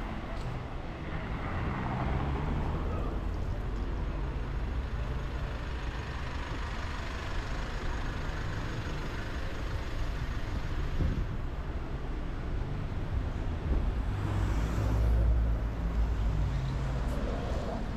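Street traffic: cars driving along a shopping street, with one vehicle passing close and loudest near the end.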